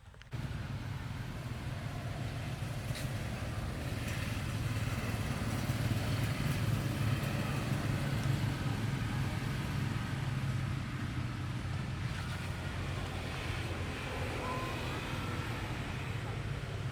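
An engine running steadily with a low rumble, cutting in abruptly just after the start, with faint voices under it.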